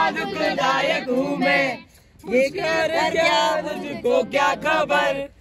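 Male voices singing a song, with a short break about two seconds in.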